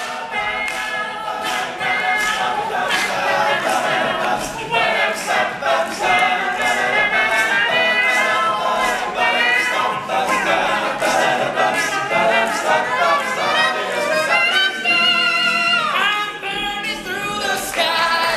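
A cappella group singing wordless harmonies in place of the song's guitar solo. Vocal percussion keeps a steady beat underneath.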